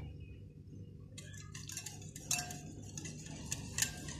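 Wire whisk beating yogurt in a glass bowl, its wires ticking and clinking against the glass in quick, irregular strokes that start about a second in.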